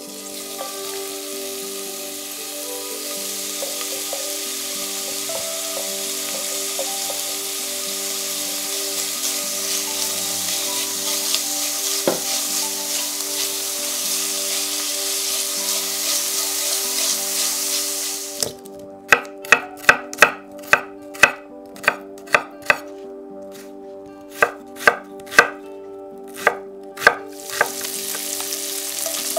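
Diced streaky bacon sizzling in olive oil in a stainless-steel frying pan. About two-thirds of the way through, the sizzle cuts off and a knife chops in quick, sharp strokes on a board, about twenty in all. The sizzling returns near the end.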